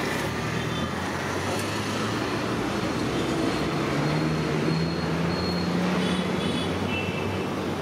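Hot oil sizzling steadily in a wide iron kadai as battered brinjal bajjis deep-fry, mixed with street traffic noise and a low hum that is strongest about halfway through.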